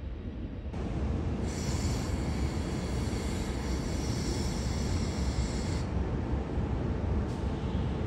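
Historic SBB electric locomotive running close by: a steady rumble that grows louder about a second in, with a higher hiss from about a second and a half in until about six seconds in.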